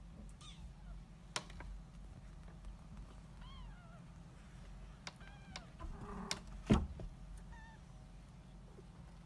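British Shorthair kittens mewing: a few short, high mews, one falling in pitch about three and a half seconds in, more around five seconds and a short one near eight seconds. Light knocks come in between, the loudest a thump just before seven seconds, over a low steady hum.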